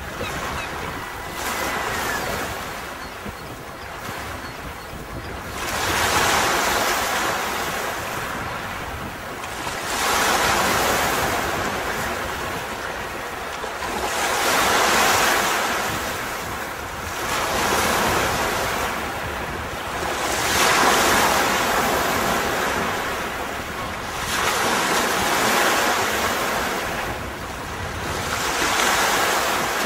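Sea waves breaking and washing up a beach, one surge about every four seconds.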